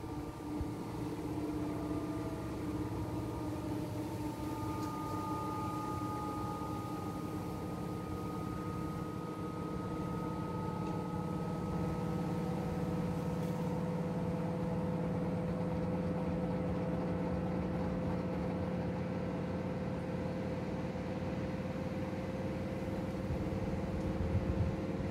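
Two front-loading washing machines, an AEG Öko-Lavamat and a Whirlpool FSCR70420, running together on rinse-and-spin cycles. Their motors give a steady whine of several tones over a low hum, creeping slowly upward in pitch.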